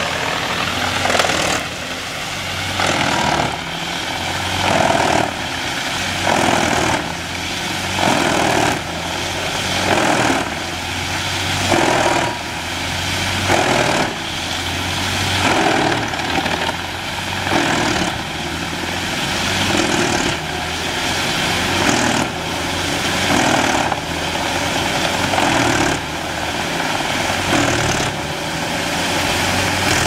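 Truck-mounted wood chipper running under load, chewing through logs fed into its toothed feed rollers by the crane. The noise swells and falls about every two seconds.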